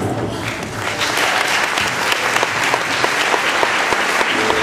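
Theatre audience applauding: many hands clapping in a dense, steady patter.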